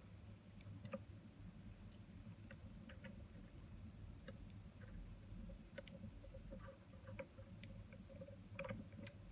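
Faint, scattered small clicks and ticks of fingers handling a plastic lens bayonet mount ring while hooking its small wire spring back on, over a low steady hum.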